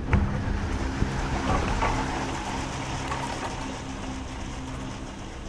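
Dragondola gondola cabin running along its haul rope: a steady rumble and rattle heard from inside the cabin, with a sharp click just after the start and busier rattling about two seconds in, easing off toward the end.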